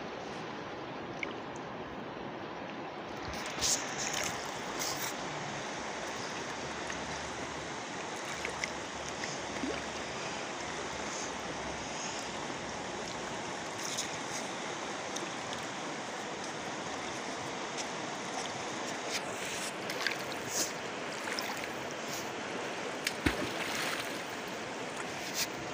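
Fast-flowing river rushing steadily, with a few sharp clicks and knocks scattered through.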